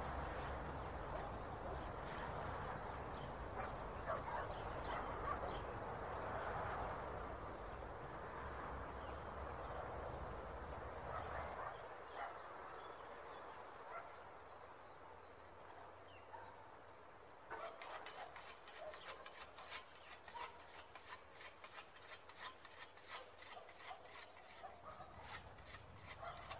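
Old-style scythe swishing through alfalfa under a steady low rumble and rushing noise. The rumble drops away about halfway, and later a quick run of sharp, light clicks sets in.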